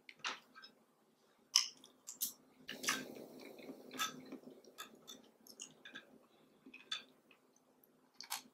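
Close-miked eating: chewing and mouth sounds, with sharp clicks of a metal fork against the plate about once a second as food is picked up.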